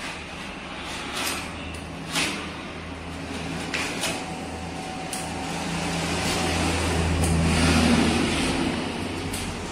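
Scattered sharp clicks and knocks as a steel drywall ceiling profile is handled and fitted overhead. Underneath is a low rumble that swells to its loudest about eight seconds in, then fades.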